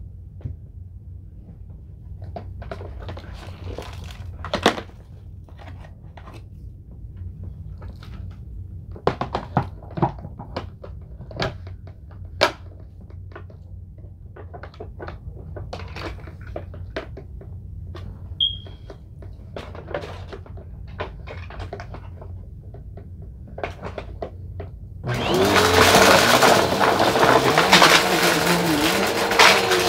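Scattered light ticks and taps over a low hum, then about 25 seconds in a Bissell vacuum cleaner switches on and runs loudly, its motor whine rising briefly and settling into a steady tone.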